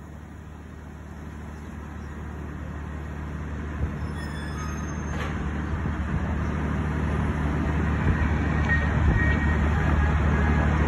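A bus engine's low rumble, growing steadily louder throughout.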